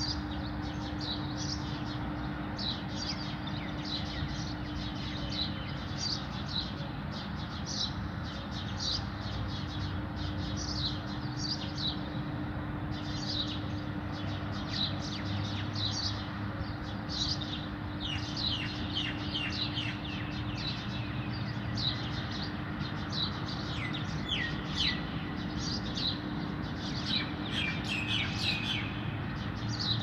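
Birds nesting in a CCTV camera housing chirping: short high chirps about two a second, growing busier in the last third. A steady low hum runs underneath.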